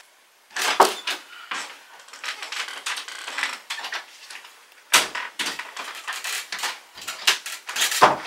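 A wooden interior door being handled: a string of knocks and clicks from the door, its handle and latch, with the loudest knocks about a second in, just before five seconds in and near the end.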